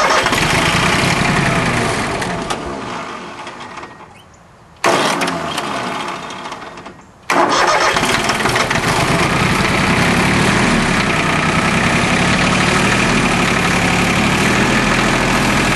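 Three-cylinder Yanmar YM1401D diesel tractor engine being started after air was bled from its fuel system. Two attempts each begin loudly and fade away. On a third try, about seven seconds in, it catches and settles into a steady run.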